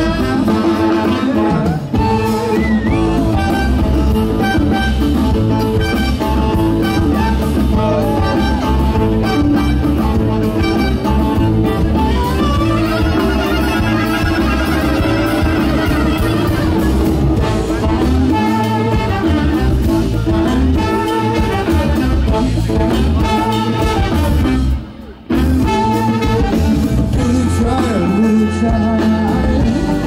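A live band playing, with singing; the music cuts out for a moment near the end.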